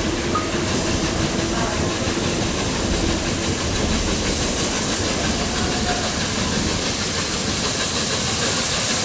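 LNER Peppercorn A1 Pacific steam locomotive approaching, its steam and running gear making a steady hiss that grows slightly louder toward the end.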